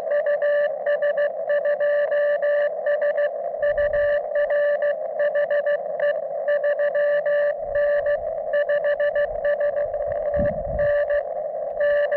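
Morse code (CW) from a portable ham radio's speaker: a single steady tone keyed on and off in dots and dashes over a constant band hiss. Brief low rumbles come about four seconds in and again near ten seconds.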